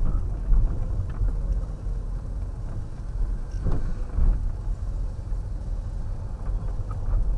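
Low, steady rumble of a car's engine and tyres heard from inside the cabin as it drives slowly down a street.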